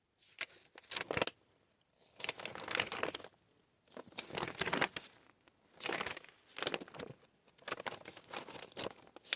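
Packaging being handled during an unboxing, crinkling in irregular bursts with a few sharp clicks.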